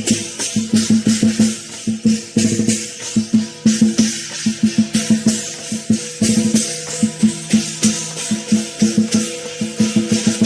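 Lion dance percussion: a big drum beaten in a fast, driving rhythm with clashing cymbals over it.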